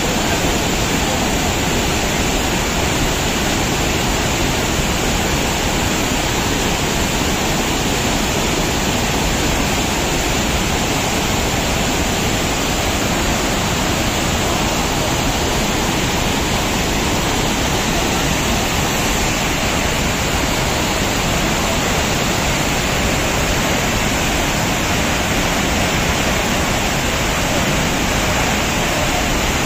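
Whitewater rapids of the Kaveri River rushing over rocks: a loud, steady rush of water.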